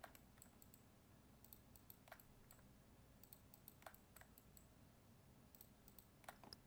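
Faint, irregularly spaced clicks of a computer mouse and keyboard being worked, over near silence.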